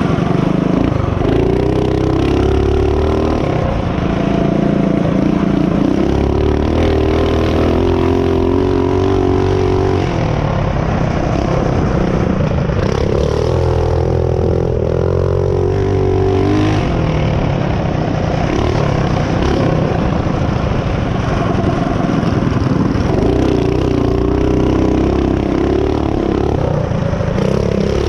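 Mini bike's small engine running under way on a dirt trail, its pitch climbing and holding high, then dropping back several times as the throttle is opened and eased.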